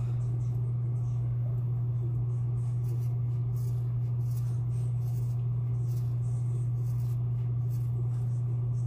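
Scissors snipping through a thick braid of hair in a run of short, crisp cuts, about one or two a second, over a loud steady low hum.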